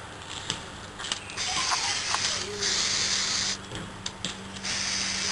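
Aerosol can of CRC heavy-duty silicone lubricant spraying in bursts of hiss: a fainter short spray, then two strong bursts about a second apart, the last still going at the end.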